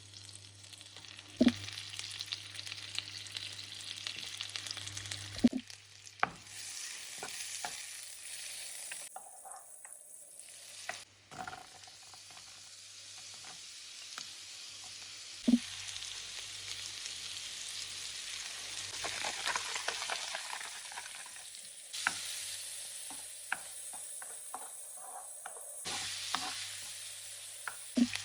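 Food frying in a pan, sizzling steadily while it is stirred, with a few sharp knocks of the utensil against the pan. The sizzle shifts abruptly several times as the footage cuts between cooking steps.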